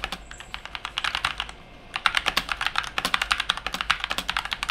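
Fast typing on an Inplay NK680 mechanical keyboard laid flat: many rapid keystroke clicks, with a short lull about one and a half seconds in before the typing picks up again.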